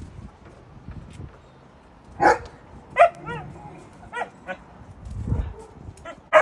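Young shepsky dogs barking in short separate calls as they play. A loud bark comes about two seconds in and another about a second later, followed by a few quicker pitched calls, and a last loud bark at the end.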